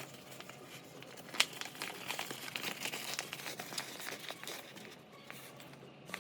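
Stiff laminated sailcloth-type fabric crinkling as it is handled and folded, with scattered small clicks and one sharper click about a second and a half in.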